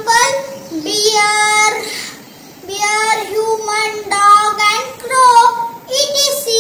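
A boy's high voice reciting in a sing-song way, holding long vowels on level notes, with a short pause about two seconds in.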